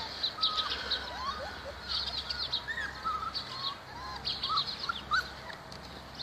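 Many overlapping high chirps and short squeaky calls that bend up and down in pitch, from several small animals calling at once.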